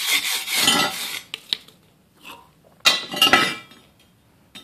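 Scraping and rubbing for about a second, then light metal clinks and a louder clatter of steel with a brief ring about three seconds in, as a welded steel workpiece is handled.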